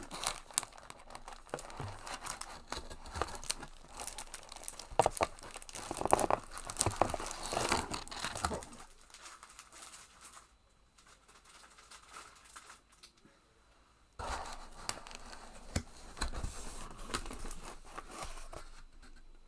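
A cardboard shipping box being opened by hand: tearing and crinkling of tape and packing material, busy for the first half, then a quieter stretch of a few seconds before the rustling starts again.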